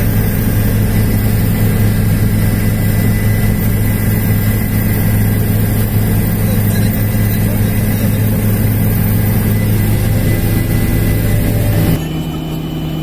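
Helicopter cabin noise in flight: the engine and rotor run with a loud, steady drone. About a second before the end the sound drops abruptly to a quieter steady drone at a different pitch.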